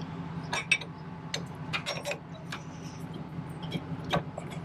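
Irregular sharp metal clicks and clinks from the Hensley hitch's hardware being worked, as it is cranked down tighter, over a steady low hum.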